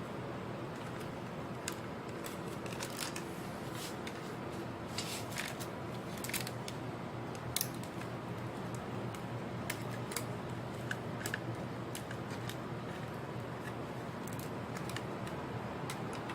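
Scattered light clicks and taps of small repair tools and laptop parts being handled on the bench, over a steady low hum.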